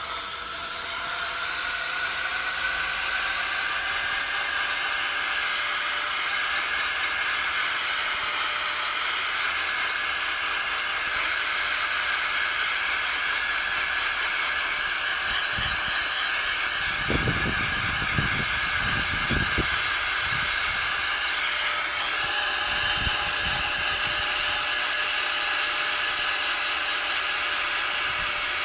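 Steady hiss of blown air while laptop cooling fans are cleaned, with a motor whine that rises in pitch over the first couple of seconds and then holds steady. A few dull knocks come in the middle.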